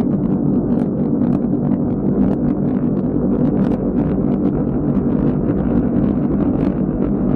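Rocket engines at launch: a loud, steady rumble with sharp crackles.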